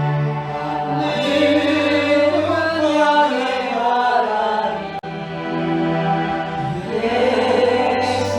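Slow Korean gospel song: sustained, chant-like choral singing over a held low bass note.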